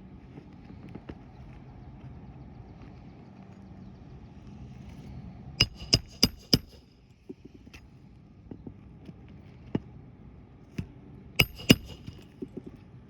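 Sharp metallic strikes of hand-tool work on an asphalt shingle roof: a quick run of four, then single hits, then a loud pair, each of the loudest with a brief ringing tone, followed by a few light taps near the end.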